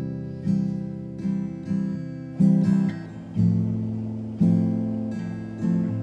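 Background music: acoustic guitar strumming chords, with a new strum about once or twice a second.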